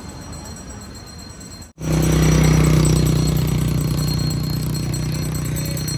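A faint, even wash of surf or wind noise, then an abrupt cut about two seconds in to a loud, steady engine running at constant speed.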